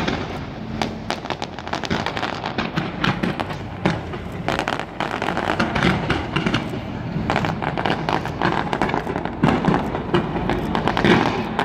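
Fireworks going off in a rapid, continuous string of sharp pops and crackles, with a few louder bangs standing out near the end.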